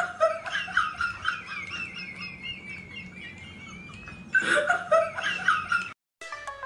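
A woman's high-pitched, wavering squeal with bursts of laughter, breaking off suddenly near the end.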